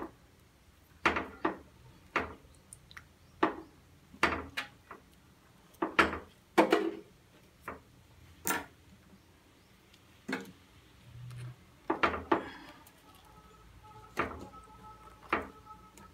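Scattered sharp clicks and taps of steel cookware as the dough seal is broken away from a steel plate lid on a dum biryani pot, opening the sealed pot after cooking.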